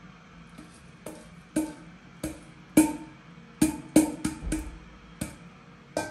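Stainless steel pot knocked and tapped over a mixing bowl to shake out ground walnuts: about ten sharp metallic knocks at uneven intervals, each ringing briefly.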